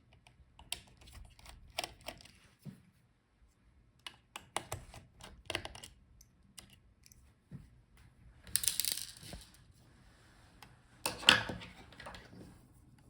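Scattered light clicks and taps from a small screwdriver and fingers working on a laptop's cooling fan and heatsink, with a short scraping rustle about nine seconds in and a louder knock about eleven seconds in.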